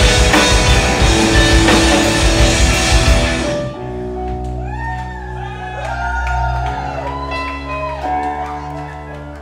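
Live rock band playing loudly with drums and guitar. About three and a half seconds in, the full band cuts off, leaving a held chord ringing while voices call out with gliding, wavering notes.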